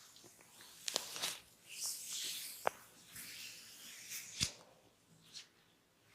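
Close-miked rubbing and scratching from a barber's hands or tools working on a client's head and ears, with three sharp clicks about one, two and a half, and four and a half seconds in.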